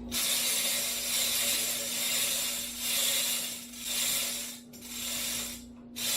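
Ratchet wrench clicking in repeated runs of about a second each, with short pauses between them, as a bolt on the Bridgeport mill's head is worked. A steady low hum runs underneath.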